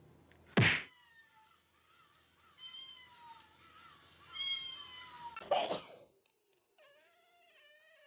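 Domestic cat meowing: two drawn-out meows with falling pitch, between a sharp thump under a second in and another loud knock just after the second meow.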